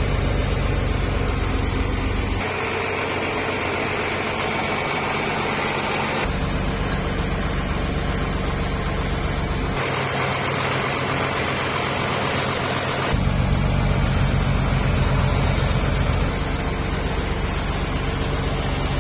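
Ebro H 135 DT tractor's Nissan B6.60 diesel engine running at a steady, unchanging speed. The tone shifts abruptly every three or four seconds as one recording cuts to the next.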